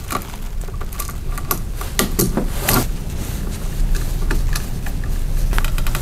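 Irregular small clicks and taps of a light switch's metal mounting strap and copper wire being handled as the ground wire is hooked onto the switch's ground screw, over a low steady hum.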